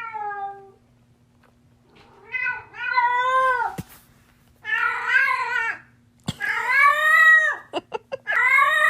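A cat meowing in about five long, drawn-out yowls, each rising and falling in pitch, with short pauses between them. A faint steady hum runs underneath.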